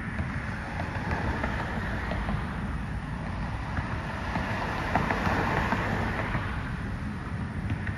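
Outdoor background noise: wind buffeting the microphone over a steady low rumble, with no clear bird calls.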